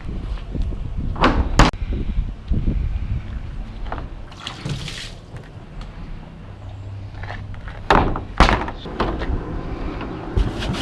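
A few sharp knocks and thuds, two about a second in and two more near the end, over a low rumble of wind on the microphone.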